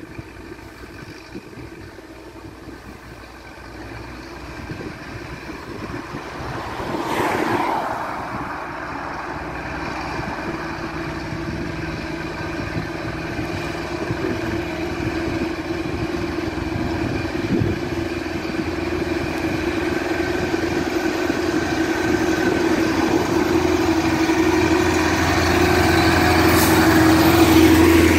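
Ursus farm tractor's diesel engine running steadily under way while pulling a trailer, growing louder as it approaches and loudest as it passes close near the end. A brief rushing whoosh about seven seconds in.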